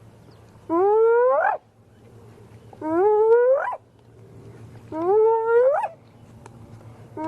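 Spotted hyena whooping: a series of drawn-out calls, each rising in pitch and ending in an upswept 'whoop', repeated about every two seconds. Three calls fall in full, and a fourth begins near the end.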